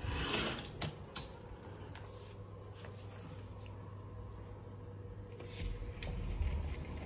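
A sliding balcony screen door being opened: a short rolling swish, then a few sharp clicks of the frame. A low steady hum runs underneath, with a brief low rumble near the end.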